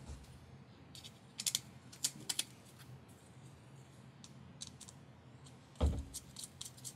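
Small sharp clicks and taps of carbon-fibre frame plates, an arm and steel screws being handled and fitted together, with a dull knock near the end, the loudest sound, followed by a quick run of clicks.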